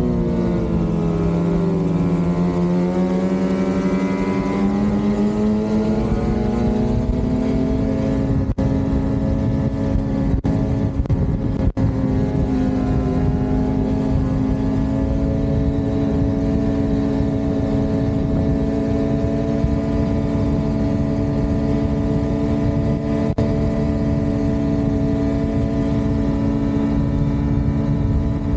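Lynx Shredder RE 850 Turbo snowmobile's two-stroke twin engine, breathing through a Jaws trail muffler, under way on the trail. Its pitch drops as the throttle eases off, climbs again a few seconds in, then holds steady at cruising speed over a low rushing noise.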